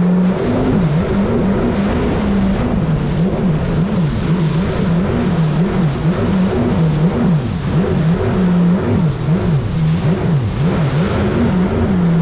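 Jet ski engine running hard at speed, its pitch rising and falling over and over, with the rush of water spray underneath.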